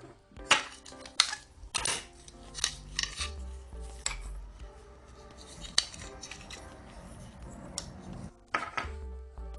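Metal parts and hand tools clinking and clattering: many sharp strikes, thickest in the first couple of seconds, with a low rumble in the middle. Quiet background music with steady tones runs underneath.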